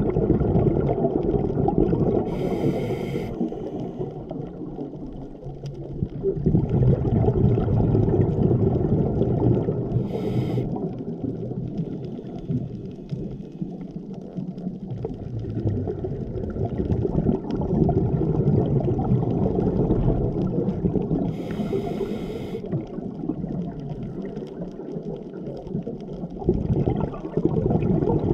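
Scuba diver breathing on a regulator, heard underwater: three short hissing inhalations several seconds apart, with long bubbling exhalations swelling and fading in between.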